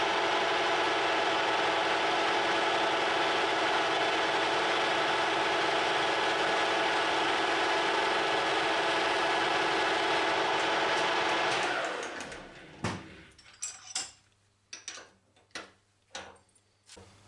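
Metal lathe running steadily, then switched off about twelve seconds in and quickly running down. After that come a string of separate sharp clicks and knocks.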